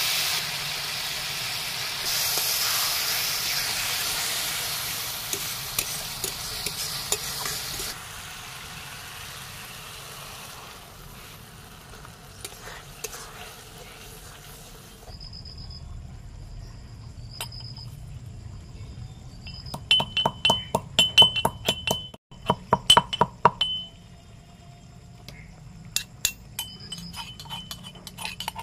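Greens frying in an aluminium wok over a wood fire: a loud sizzling hiss that dies down to a quieter hiss. Later come a run of sharp clinking strokes, then a few more near the end, from a small mortar and pestle pounding spices.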